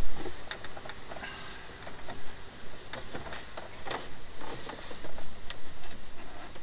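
Plastic clicks, knocks and rustling as a Jeep's dashboard top pad is pushed and shifted into place on the dash, the loudest knock right at the start.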